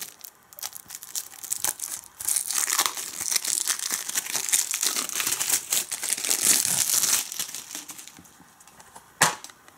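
Plastic shrink wrap being torn and crinkled off a Blu-ray case, with scattered crackles and then several seconds of dense crackling. Near the end comes a single sharp click as the plastic case is snapped open.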